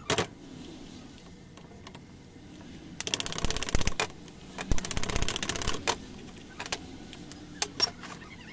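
Rapid ratchet clicking from a T-handle socket wrench turning screws on a Husqvarna 365 chainsaw, in two runs of about a second each, followed by a few sharp knocks of tools and parts set down on the metal workbench.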